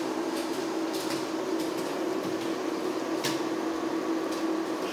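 Steel pot of water boiling on an electric cooktop: a steady electric hum under a soft bubbling hiss, with a few faint pops from the bubbles.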